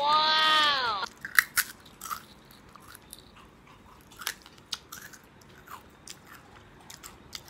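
Crisp chewing of a crunchy dried snow pea pod snack: irregular sharp crunches from about a second in.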